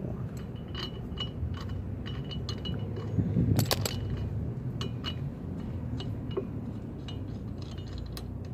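Light metal-on-metal clinks and clicks, a few a second, some with a short ringing ping, as a lug nut and tools are handled on a wheel stud at the hub. There is a louder clatter about three and a half seconds in, over a steady low rumble.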